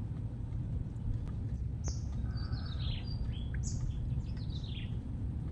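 Bird calls: twice, a short high note followed by a quick series of falling chirps, over a steady low rumble.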